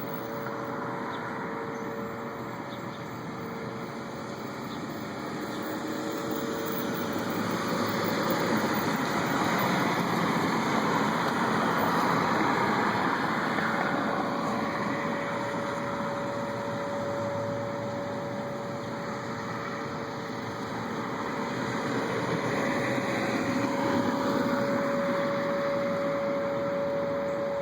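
A steady, far-off mechanical drone: a couple of constant humming tones over a rushing noise that swells up and dies back twice. The recorder takes it for a strange noise coming from the sky that went on for hours.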